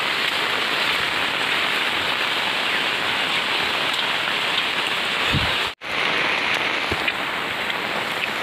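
Steady rain falling, a dense even hiss. A brief dull thump comes a little past halfway, and the sound cuts out for an instant just after it.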